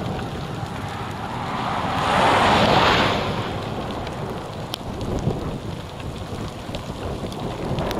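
Steady rain with wind buffeting the microphone, a few drops ticking, and a whooshing gust that swells and fades about two to three seconds in.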